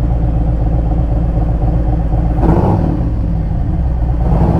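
Harley-Davidson Road Glide's V-twin engine idling in neutral, with a brief louder rush of noise about halfway through and a smaller one near the end.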